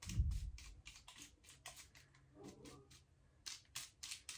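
A tint brush dabbing and stroking bleach onto hair laid over aluminium foil, making quick scratchy ticks at about four or five a second. There is a low thump right at the start.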